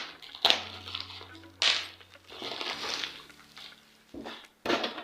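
Product box and packaging being handled: a few sharp knocks and stretches of rustling, over quiet background music.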